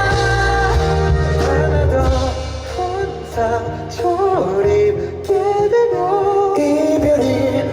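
A singer performing a Korean pop ballad live, a sung melody line over instrumental accompaniment.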